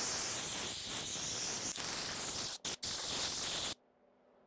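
Compressed-air blow gun blasting a loud, steady hiss as it blows metal swarf out of the engine bay after cutting. The blast breaks off twice very briefly a little after halfway, then stops abruptly about three-quarters of the way through.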